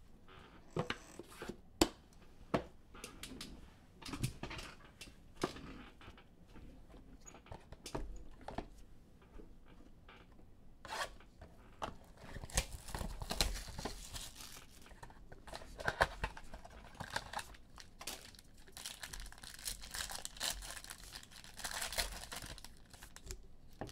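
Taps and clicks of card boxes and cards being handled, then a foil trading-card pack crinkling and tearing open in repeated bursts through the second half.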